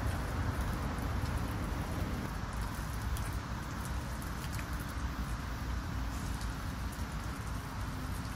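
Water running from a hose and splashing and pattering onto wet paving stones as a dog's legs and paws are rinsed, over a steady low rumble.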